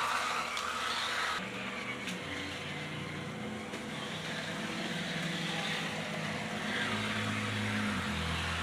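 Tyco shark-nose model train locomotive running on the track after repair: its small electric motor and gears give a steady whirring buzz, with the rolling wheels on the rails.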